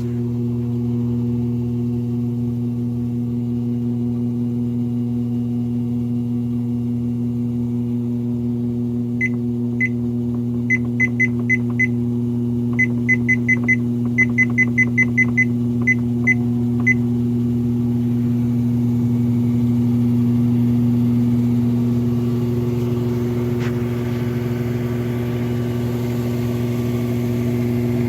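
Treadmill drive motor running steadily with a low hum, turning the belt. In the middle stretch, the treadmill's control board gives a run of short, high beeps as the speed button is pressed again and again.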